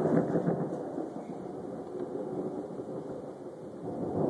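Thunder rumbling, with a crackling start that eases off through the middle and builds again near the end.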